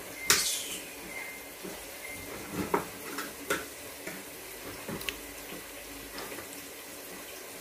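Light, scattered clicks and knocks of kitchen utensils handled on a counter, about five in all, over a steady faint hiss.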